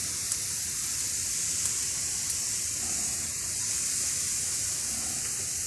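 Sausages and meat sizzling on a charcoal grill, a steady high hiss of fat cooking.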